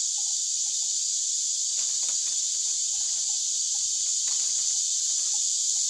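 Steady, high-pitched insect chirring throughout. Beneath it come a few faint clicks and rustles of bamboo strips being threaded into a woven chicken basket.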